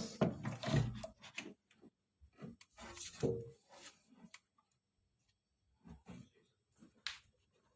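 Scattered clicks, knocks and brief rustles of hands handling a window air conditioner's control board and its wiring, with quiet gaps between them; the sharpest click comes about seven seconds in.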